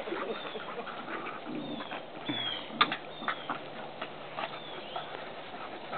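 Two dogs, one large and one small, play-wrestling on grass: scuffling with scattered short knocks. A row of short, high, falling chirps repeats in the background about once a second.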